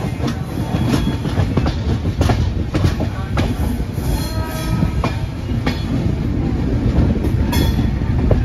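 Passenger train running along the track, heard from an open coach doorway: a loud steady rumble of the wheels with irregular sharp clicks of wheels over the rails.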